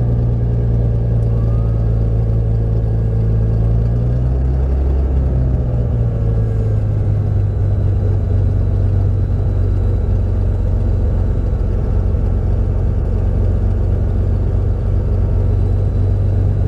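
Navion's single piston engine and propeller running steadily at low taxi power, heard from inside the cockpit; the engine note drops slightly about five seconds in.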